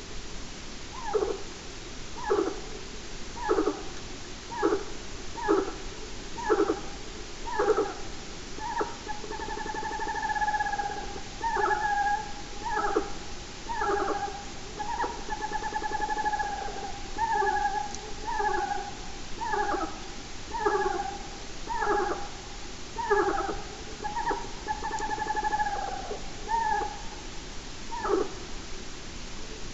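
An unidentified animal calling loudly and repeatedly, about once a second. The first calls are short, and from about ten seconds in they stretch into longer, wavering two-part notes before stopping near the end.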